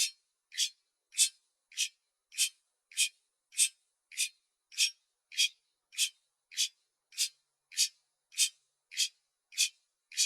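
Clock ticking steadily, with crisp, high-pitched ticks a little under two a second and evenly spaced.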